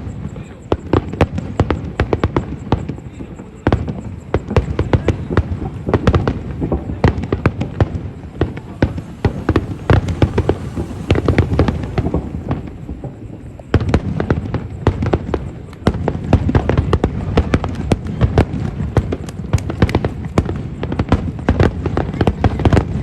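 Starmine fireworks barrage: a rapid, unbroken string of shell bursts and crackles, several a second, growing louder about four seconds in and again past the middle.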